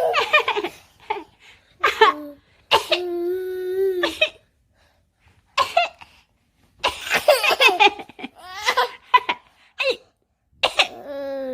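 Playful coughing and laughing from a mother and a young child, in short bursts with pauses between them. Two of the sounds are drawn-out voiced calls held at a steady pitch: one about three seconds in, one near the end.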